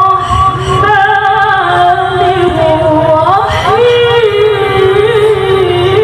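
A woman's melodic Quran recitation (tilawah), sung through a microphone in long held notes with wavering ornaments. About three and a half seconds in, her voice glides up to a higher held note.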